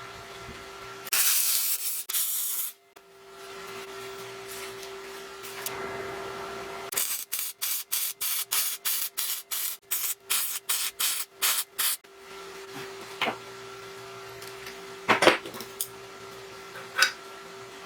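Hand filing or rubbing on a workpiece: quick, even back-and-forth strokes, about three a second, for about five seconds in the middle. A short loud hiss comes about a second in, and a faint steady hum lies underneath.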